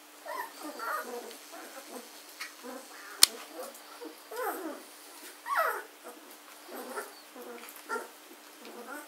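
Two-week-old German shorthaired pointer puppies whimpering and squeaking, with a couple of longer whines that fall in pitch near the middle. A single sharp click about three seconds in is the loudest sound.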